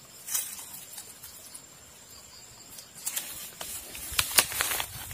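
Rustling and scraping of grass, roots and soil as a young plant is dug and pulled out of a riverbank by hand with a machete. There is one sharp scrape about a third of a second in, then a cluster of crackling scrapes in the second half, the loudest about four seconds in. A faint steady high insect tone runs underneath.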